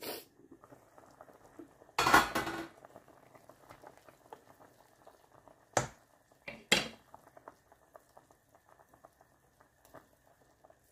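A pot of food bubbling and crackling on the stove. About two seconds in there is a brief loud scrape or rattle. Around six and seven seconds a utensil knocks sharply against the pot, twice.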